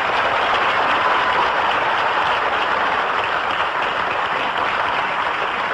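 Television studio audience applauding steadily after a comedian's introduction, easing off slightly near the end.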